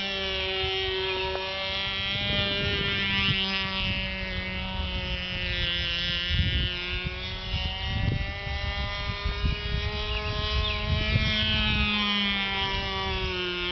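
Nitro (glow-fuel) RC model airplane engine running at high revs overhead, a steady whine that drifts up and down in pitch as the plane manoeuvres, with gusts of wind rumbling on the microphone.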